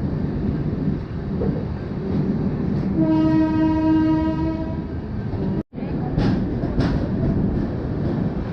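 Running noise inside an Indian Railways LHB passenger coach at speed: a steady rumble with sharp wheel clicks. The train's horn sounds one held note for nearly two seconds about three seconds in. The sound cuts out for a split second a little before six seconds.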